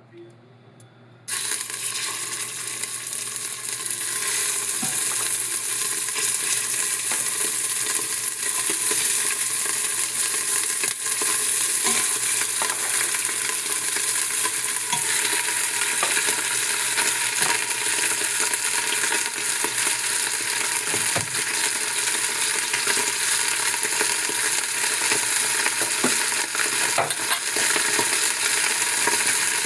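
Food sizzling in hot oil in a pan, starting suddenly about a second in and then going on steadily, with a few small clicks and knocks.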